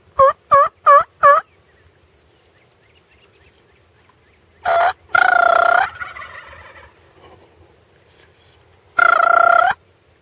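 Turkey calling: four quick yelps in the first second and a half, then two loud gobbles, one about five seconds in that trails off and another near the end.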